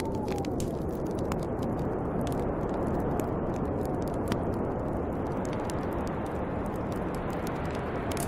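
Snowstorm wind blowing steadily, with a howling whistle that sinks and fades about half a second in. Sharp crackles and pops of a wood fire are scattered throughout.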